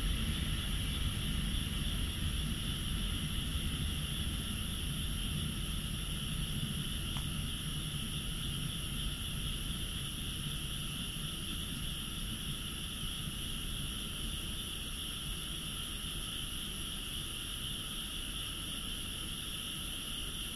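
A steady night chorus of frogs from nearby rice paddies, heard as even high calling. Under it, a low rumble fades over the first dozen or so seconds as a freight train moves away.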